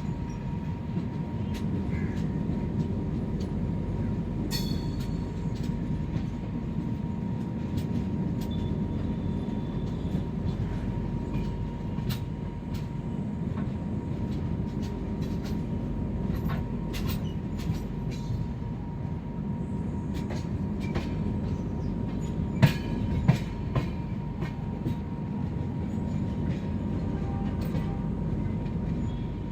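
Express passenger train on the move: a steady low rumble with scattered clicks of the wheels on the rails, and a faint steady high tone underneath. Two sharper knocks come about three quarters of the way through.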